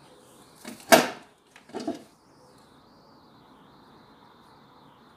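Two brief handling noises, the louder about a second in and a smaller one just under a second later, as the cloth mask is moved about on the sewing-machine table; a faint steady high whine sits under them.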